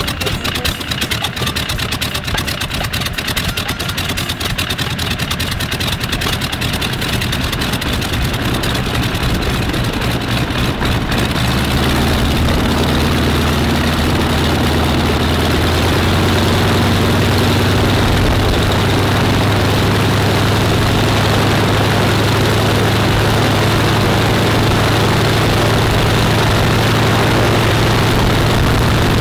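Pratt & Whitney R-985 nine-cylinder radial engine of a Gee Bee Z running on the ground. The first stretch has its separate firing beats plainly heard. About twelve seconds in it becomes louder and smoother, a steady low hum.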